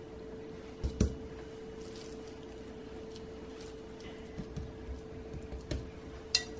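Raw ground-meat mixture being scooped and pressed by hand into a metal muffin pan: faint squishing with a few soft knocks, the loudest about a second in, over a steady low hum.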